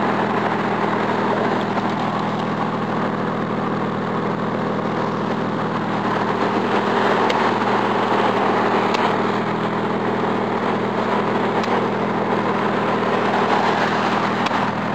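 Car engine idling steadily, with a few faint ticks, which the owner suspects may be a misfire.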